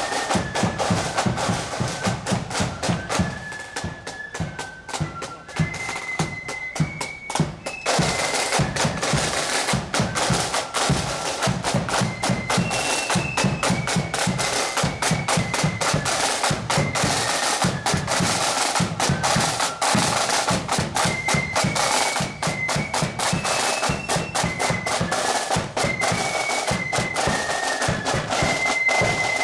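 Marching band playing: a high melody over a steady bass drum beat and rattling snare drums, getting louder about eight seconds in.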